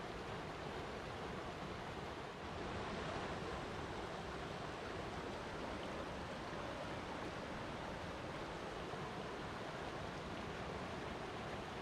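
Flowing water making a steady, even rush, with no other sounds.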